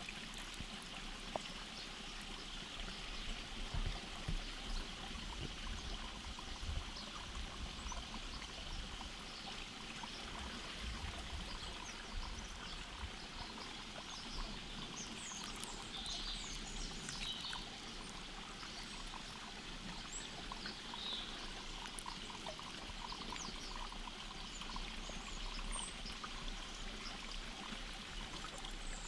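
Steady trickle of a flowing stream, with a few short bird chirps, mostly in the second half.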